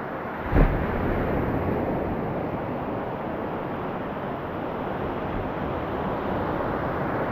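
Sea waves and surf washing steadily, with a sudden low thump about half a second in.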